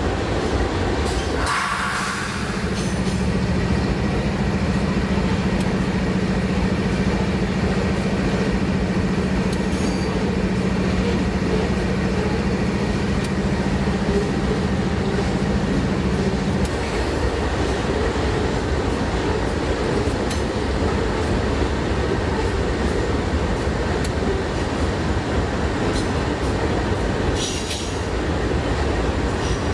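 Freight train of grain hopper wagons rolling past: a steady rumble and rattle of wagons and wheels on the rails, with scattered clicks. A low steady hum runs under it and cuts off a little over halfway through, and a brief high-pitched squeal comes near the end.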